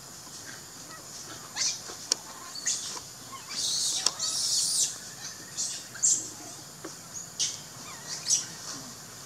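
Forest birds chirping: short, high chirps come irregularly every half second to a second, with a longer hissing burst about three and a half seconds in.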